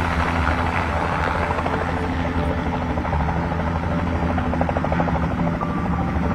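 Light single-engine helicopter coming in to land, its rotor beating rapidly over a steady engine drone, loud throughout.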